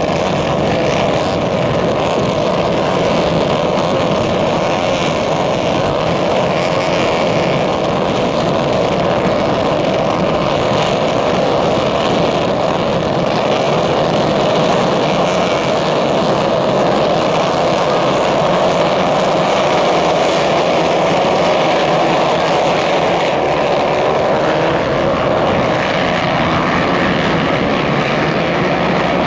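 A pack of 150cc karts' small engines running together in one steady, unbroken drone.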